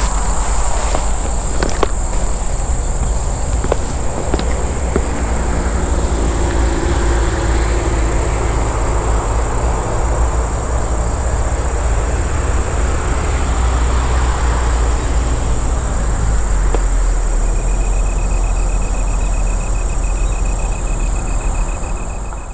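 Insects chirping steadily in a high, unbroken drone over a steady low rumble. A second, pulsing insect call joins a few seconds before the end, and the sound fades out at the close.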